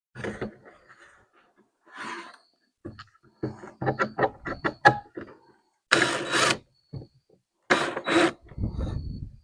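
Objects being handled on a workbench: scattered clicks, knocks and rubbing, with two short, loud noisy bursts about six and eight seconds in.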